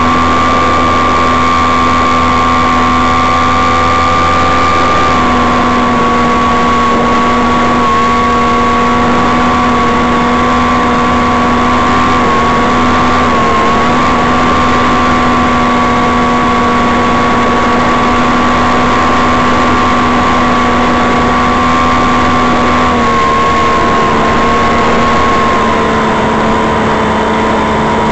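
A powered glider's motor and propeller running steadily in flight, heard from the onboard camera as a steady drone whose pitch dips slightly about five seconds in and again near the end.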